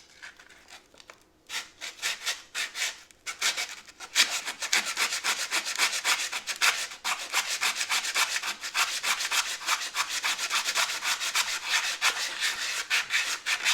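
180-grit sandpaper worked by hand in quick back-and-forth strokes over body-filler glazing putty on a car's steel fender, rasping rhythmically. It starts faint and becomes steady and louder about four seconds in.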